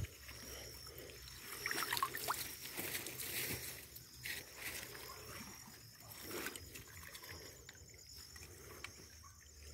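Faint, irregular splashing and sloshing of shallow creek water, with rustling of plants, as a mesh sieve and feet are moved through the stream.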